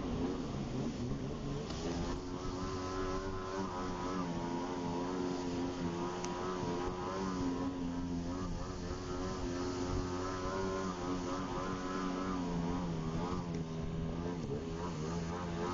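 Jet ski engine running under way at a fairly steady throttle, its pitch wavering up and down as the throttle is eased and opened, with a brief dip near the end.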